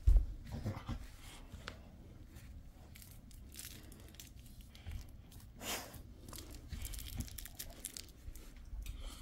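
Jindo dog mouthing and tugging at a plush eggplant toy: scattered rustling and crinkling, with a few bumps near the start.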